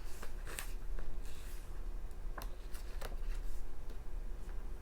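Magazine pages being turned and handled: a few separate soft paper flicks and rustles.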